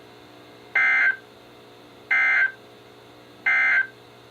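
Three short bursts of SAME digital data tones from a NOAA Weather Radio broadcast, evenly spaced about a second and a half apart. Heard right after the spoken warning ends, they are the Emergency Alert System end-of-message code marking the close of the alert.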